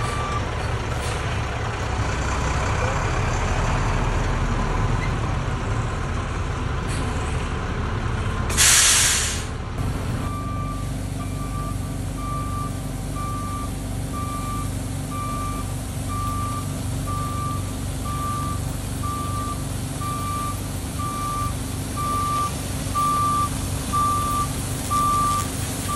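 Diesel dump truck running with a stone chip spreader on its tailgate, chips pouring onto the road. A loud air hiss about nine seconds in, typical of an air-brake release, then the truck's backup alarm beeps about once a second as it reverses.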